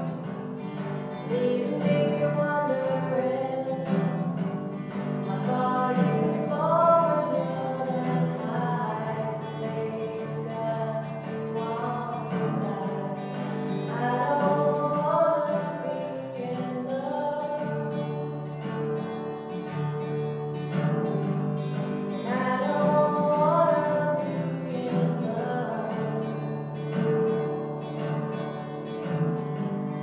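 A woman singing to her own acoustic guitar, inside a large empty oil tank.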